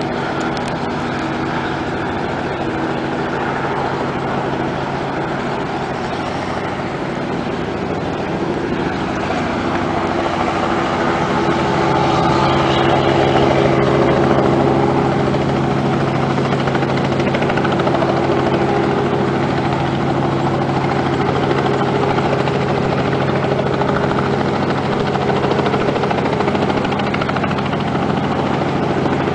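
Robinson R44 helicopter running, its rotor and six-cylinder Lycoming piston engine giving several steady tones held together, an imperfect A major chord. It grows a little louder and fuller about ten seconds in.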